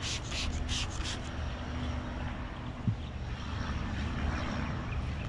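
A trigger spray bottle of glass cleaner hissing about five times in quick succession in the first second, misting the windshield. After that a low steady rumble, like a distant engine, continues underneath, with a single click about three seconds in.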